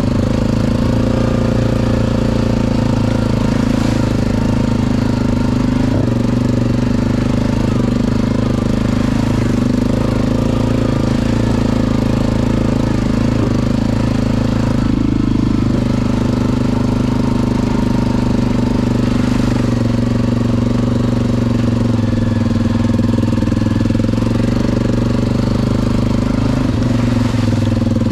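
ATV engine running loud and steady at an even speed, its pitch barely changing.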